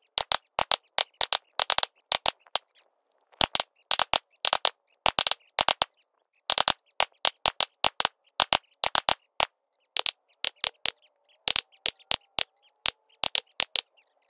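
Gunshots from a rifle and pistol shooting drill, played back sped up, so they come as a rapid, irregular string of short sharp cracks with brief silences between them.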